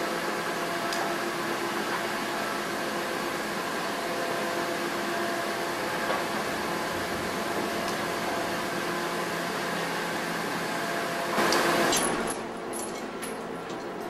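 Heavy scrap-yard machinery running with a steady hum made of several steady tones over a noisy drone. About eleven and a half seconds in there is a louder rush of noise lasting about half a second, after which the sound drops a little quieter with a few scattered clicks.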